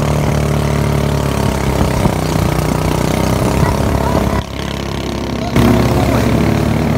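Motorboat engine running steadily at speed under a haze of rushing water noise; the sound drops briefly for about a second past the middle, then returns.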